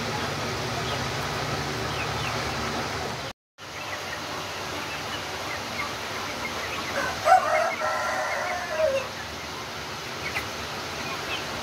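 Flock of young Light Sussex chickens peeping and clucking. About seven seconds in, a young cockerel gives a louder, drawn-out crow lasting about two seconds. The sound drops out for a moment about three seconds in.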